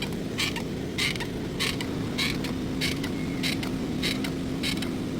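Car brake creaking in an even rhythm, a short high squeak about every 0.6 seconds, over a steady low hum. This is the brake caliper noise the repair sets out to cure.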